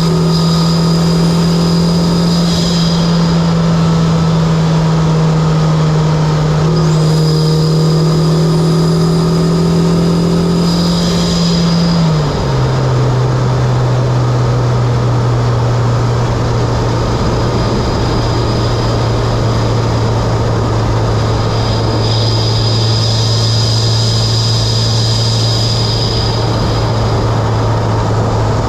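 Mitsubishi Lancer Evolution X's turbocharged four-cylinder, fitted with an Injen intake and HKS single-exit exhaust, running steadily under way with loud intake noise. The engine note steps down to a lower steady pitch about twelve seconds in.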